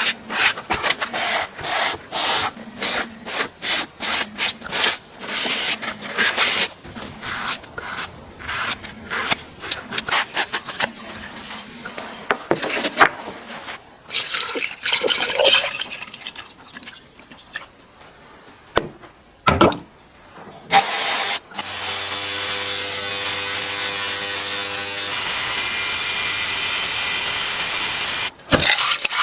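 Small tool parts clicking and scraping as a Makita TW122D cordless tool is handled and worked on. About 21 seconds in, a steady mechanical whir starts, and it cuts off abruptly about seven seconds later.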